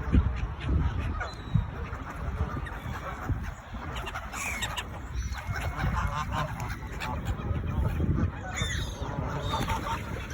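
Waterfowl calling: several short calls, clearest about halfway through and again near the end, over a steady low rumble.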